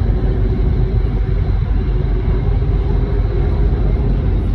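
Boat under way: its engine running with a steady low rumble and a faint constant hum.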